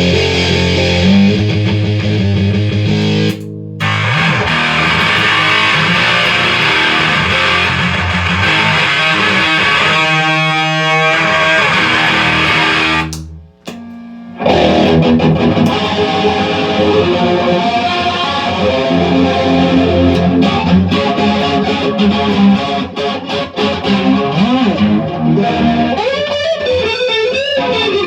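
Electric guitar played through an effects unit with a distorted tone, with sustained notes and chords. The playing breaks off for about a second a little past halfway, then resumes.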